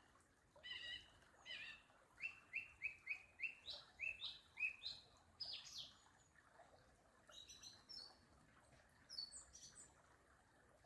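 Songbird singing: a quick run of about ten bright, repeated chirping notes over some six seconds, then a few shorter, higher phrases.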